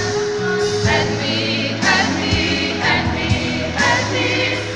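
Gospel choir singing in full voice over a steady bass line, with sharp percussive hits every second or so.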